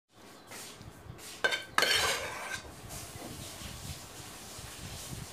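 Steel spoon clinking and scraping against a steel pot: two sharp, ringing clinks about a second and a half in, then softer scraping.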